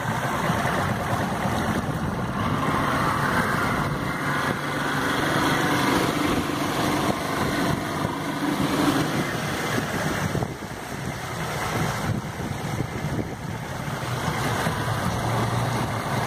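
Outboard motor of a small boat running steadily under way, with the rush of water and wind over it.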